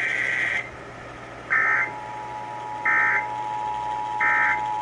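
Emergency Alert System end-of-message data bursts: short buzzy warbling digital tones repeated about every 1.3 seconds, three times after a first burst at the start. About a second and a half in, the steady two-tone EAS attention signal starts underneath and runs on.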